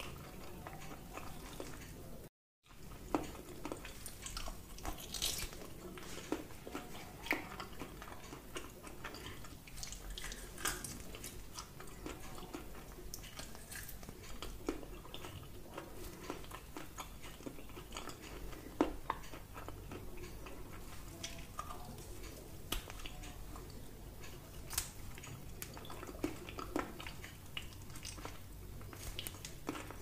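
Close-miked chewing and biting of grilled lamb rib meat off the bone, a run of irregular short clicks and crackles. The sound cuts out for a moment about two seconds in.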